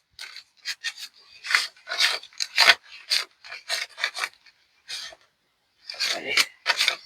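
Paper banknotes being flipped and counted by hand: a run of short, dry rustles, with a brief pause about five seconds in.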